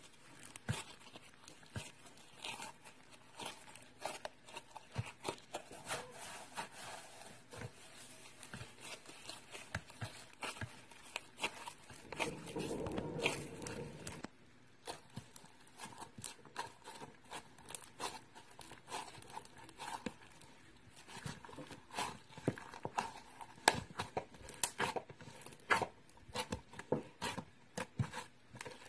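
Floam, slime packed with tiny foam beads, crackling and popping in quick irregular clicks as fingers squeeze and poke it, with a denser stretch of crackle around the middle.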